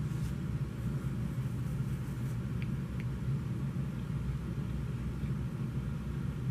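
Steady low background rumble with no clear source, with two faint ticks about two and a half and three seconds in.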